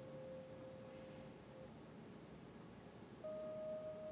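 Faint background music of long, steady pure tones. One held note stops a little under two seconds in, and a slightly higher note starts about three seconds in.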